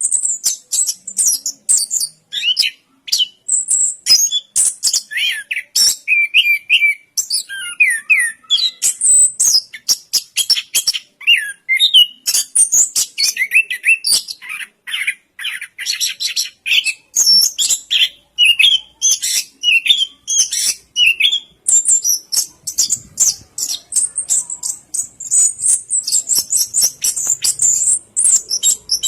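Chestnut-capped thrush (anis kembang) singing a fast, continuous song of quick chirps, trills and high whistled notes, with hardly a pause.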